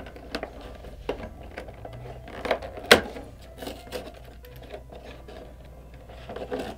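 Fingers prying and tearing open a perforated cardboard door on an advent calendar box: scattered cardboard clicks and scratches, with one sharp snap about three seconds in.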